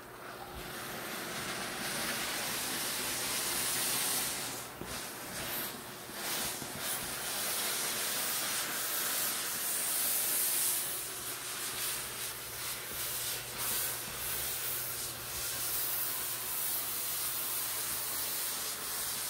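Dry vapor steam cleaner blowing steam out through its floor tool: a steady high hiss that builds over the first couple of seconds, eases briefly a few times, and cuts off at the end.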